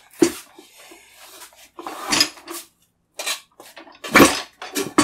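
A handful of sharp knocks and clanks as a motorcycle tire is pushed by hand onto an alloy rim on a manual tire changer: the tire and wheel bumping against the rim and the changer's metal frame. The loudest knock comes about four seconds in.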